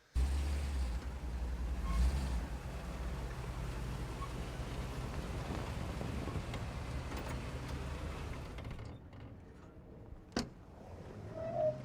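Steady low rumble of a running vehicle, starting abruptly and fading out about nine seconds in. A single sharp click comes about ten seconds in.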